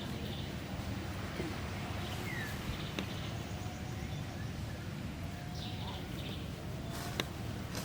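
Outdoor ambience: a steady low rumble with scattered faint chirping and sliding animal calls, and two sharp clicks, one about three seconds in and one near the end.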